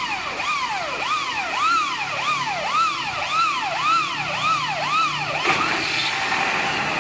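Siren rising and falling in quick regular sweeps, about eight in a row, stopping about five and a half seconds in, over a steady high whine.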